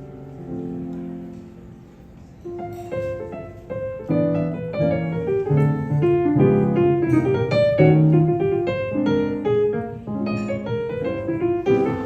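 Jazz piano playing a blues: a held chord dies away, then from about two and a half seconds in, a stream of quick single notes over chords.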